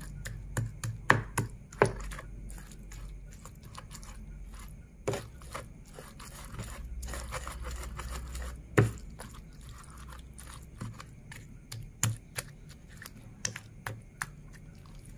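Stone pestle crushing and grinding chilies, tomatoes and shallots for sambal in a cobek mortar: wet squishing and scraping with irregular knocks of stone on the mortar, the sharpest about a second in, near two seconds and near nine seconds. The sambal is being ground until it is a bit smoother.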